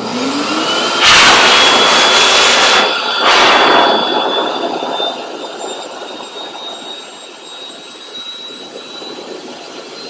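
PetNF pet force dryer (grooming blower) running, its motor whine rising in pitch as the speed is turned up over a steady rush of air. The air blast is loudest for about three seconds starting a second in, with a brief dip near three seconds, then runs softer.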